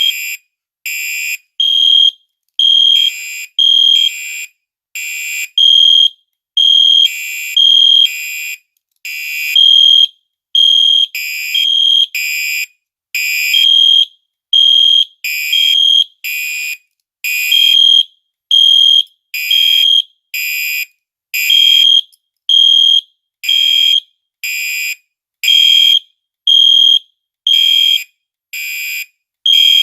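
Fire alarm sounding during a test, in short repeated pulses: a clear high tone alternates with a harsher buzzing tone, with brief silences between.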